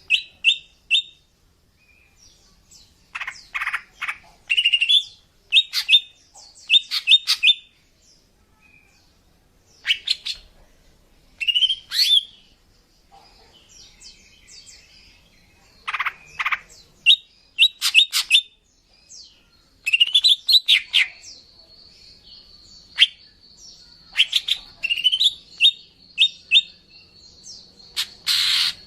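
Female cucak ijo (greater green leafbird) calling in short bursts of quick chirps and rising notes, repeated with brief pauses. This is the female call used to lure males. A thin, steady high tone runs under the calls for several seconds in the second half.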